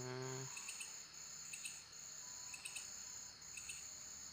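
Faint background insect trill, cricket-like: a high, continuous chirring that breaks off briefly about once a second.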